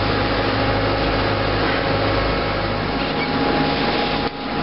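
An engine running steadily with a constant hum, dropping out briefly near the end.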